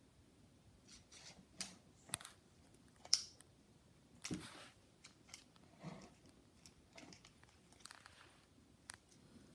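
Kittens scuffling around a cardboard shoebox: scattered light knocks, scratches and rustles of paws and claws on the cardboard and floor, the sharpest click about three seconds in.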